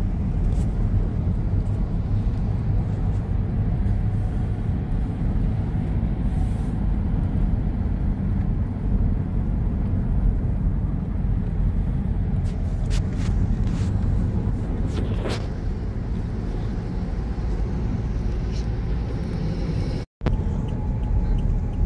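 Steady low road and engine rumble inside the cabin of a Toyota Kijang Innova Reborn creeping along in heavy highway traffic. A few light clicks come about two-thirds of the way through, and the sound cuts out for an instant near the end.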